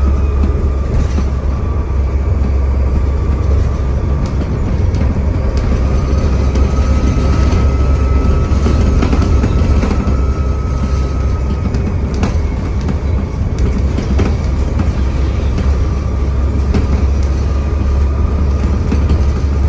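Enviro400 double-decker bus running under way, with a deep engine rumble and a thin turbocharger whistle that swells in the middle and comes back near the end. Scattered rattles and clicks sound through the body.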